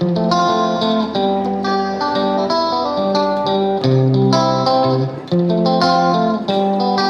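Background music: plucked guitar playing a lively melody with a steady rhythm.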